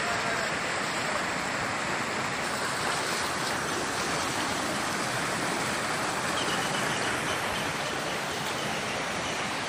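Shallow rocky river rushing over and between boulders in small rapids: a steady, even rush of water.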